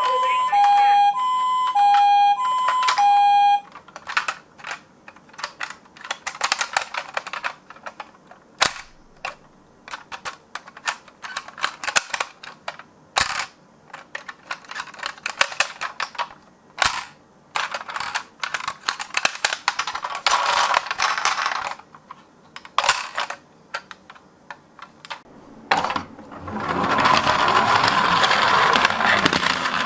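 Toy ambulance's two-tone hi-lo siren, switching between a lower and a higher pitch about every half second, cuts off suddenly a few seconds in. Then come irregular sharp clicks and clacks of die-cast miniature cars being handled and rolled on a slope. A louder, continuous rattling noise follows near the end.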